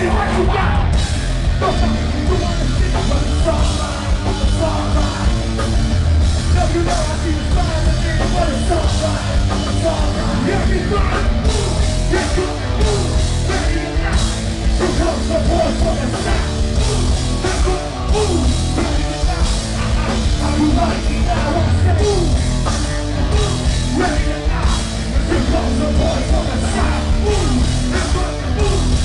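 Live rap-metal band playing loud: distorted guitars, bass and pounding drums, with the vocalist rapping and yelling into a microphone over the top.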